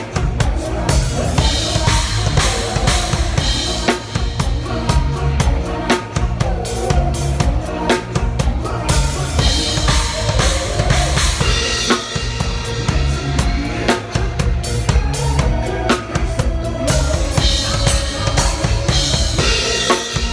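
Drum kit played in a steady beat along with the song's recorded backing track.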